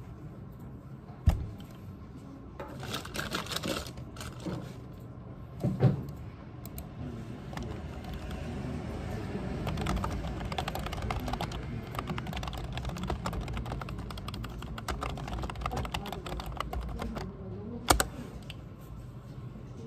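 Typing on a computer keyboard: a fast, dense run of key clicks. A few sharper, louder knocks stand out, about a second in, around six seconds and near the end.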